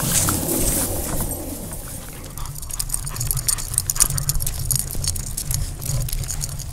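Metal fittings of a French bulldog's harness and leash clinking in quick, irregular ticks as the dog trots on its lead, with the walker's footsteps underneath.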